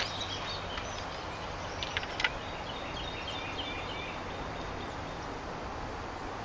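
Steady outdoor background noise, with a couple of sharp clicks about two seconds in, then a run of faint, high bird chirps.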